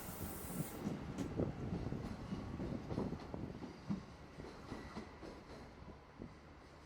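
A train running on the rails, its wheels knocking irregularly over the track as it moves away and the sound fades.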